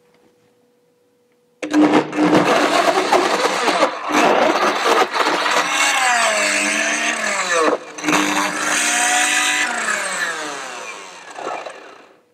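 Blendtec blender starting about a second and a half in and puréeing cooked plums and beets. The motor's whine sags and climbs in pitch as the thick mixture churns, then winds down near the end.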